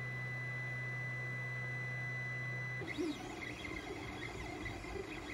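Creality Ender 3 3D printer's stepper motors running as it moves a pen over paper. A steady hum with a thin high whine gives way about three seconds in to a quieter, noisier whine that wavers in pitch as the carriage traces curves.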